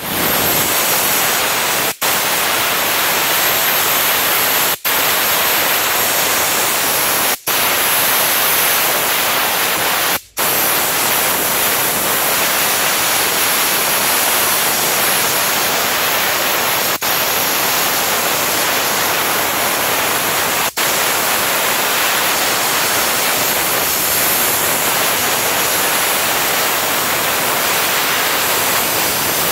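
Optima Steamer steam gun blasting a jet of steam against a brick wall, a loud, steady hiss. Six times it breaks off for a split second and comes straight back.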